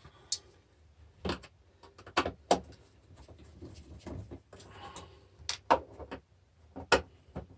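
Irregular sharp metallic clicks and taps, about eight in all with a short scrape a little after the middle, as the stacked steel plates of a battery charger's transformer core are prised apart and handled.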